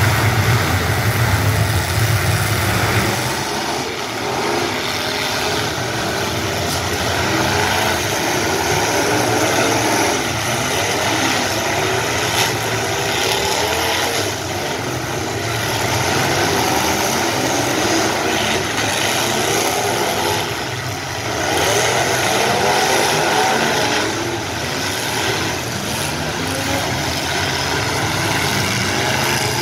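Many demolition derby cars' engines running and revving at once, their pitches rising and falling against each other, with a deep low drone in the first three seconds.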